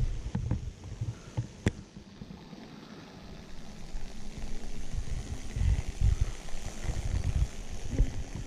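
Water pouring from the spouts of a stone font and splashing into metal grilles in the floor: a steady trickling hiss under an uneven low rumble. A few sharp clicks sound in the first two seconds.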